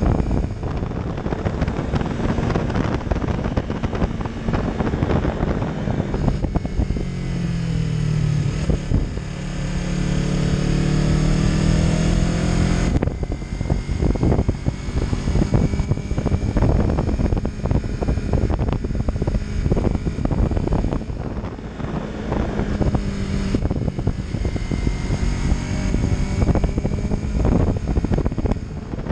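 Yamaha MT-03's parallel-twin engine running at road speed, with an Arrow Pro-Race exhaust, rising and easing with the throttle and changing abruptly about halfway through. Steady wind rush on the microphone.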